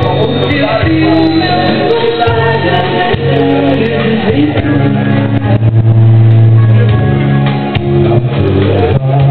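Live music: a song with singing over a steady, loud backing with sustained bass notes.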